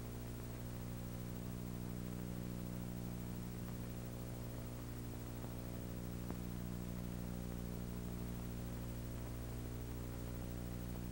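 Steady mains hum with a stack of overtones over a constant hiss, the background noise of an old videotape transfer. One faint click comes about six seconds in.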